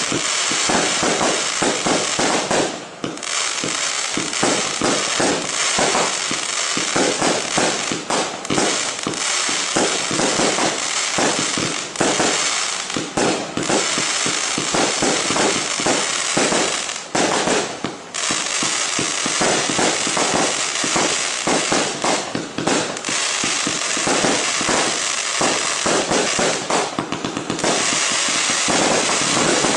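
Ardi Showbox Fascination 345-shot compound firework cake firing: a rapid, unbroken barrage of shots and crackling over a steady hiss. Brief lulls come about three seconds in and again around seventeen to eighteen seconds.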